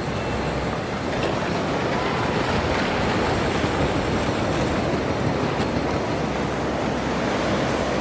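Ocean surf breaking and washing onto the beach: a steady rush of noise that swells a little about a second in.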